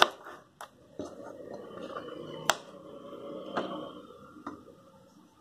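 One-rupee coins being slid and set down across a surface by hand: soft rubbing with a few light metallic clicks, the sharpest about two and a half seconds in.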